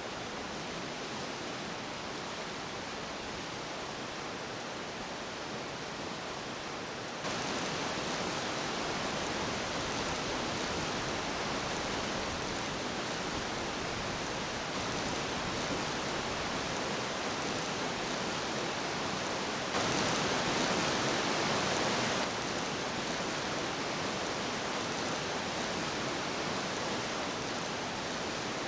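Steady hissing noise that jumps up abruptly about seven seconds in, and again briefly around twenty seconds in.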